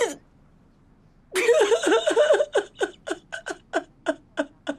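A woman crying hard: a long, wavering wail about a second in, then a quick run of short sobs, each falling in pitch.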